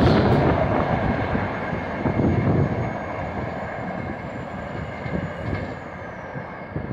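Rajdhani Express passing at speed and running away, the rumble of its wheels on the rails steadily fading as the tail of the train recedes.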